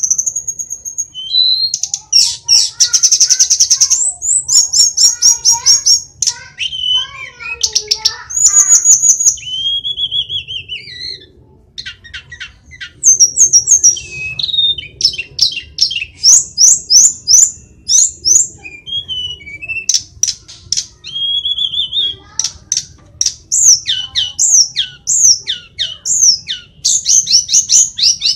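Hill blue flycatcher singing a long, varied song of fast sweeping whistled notes, quick trills and rapid descending phrases.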